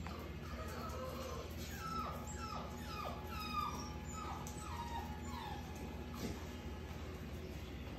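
Five-week-old yellow Labrador puppies whimpering: a run of about eight short whines, each falling in pitch, starting about two seconds in and lasting a few seconds, over a steady low hum.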